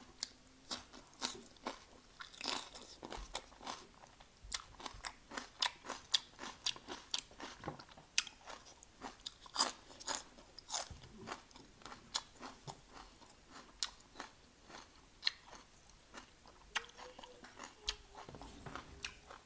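Close-up crunching and chewing of a mouthful of crispy bánh xèo (Vietnamese rice-flour crepe) with fresh greens: irregular sharp crisp crunches, about two or three a second.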